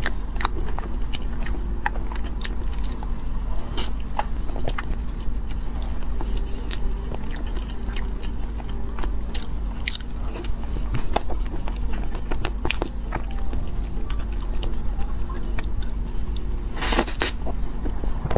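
Close-miked eating sounds: wet mouth clicks and soft chewing of cream cake, scattered irregularly, over a steady low hum. A louder, longer rustling noise comes near the end.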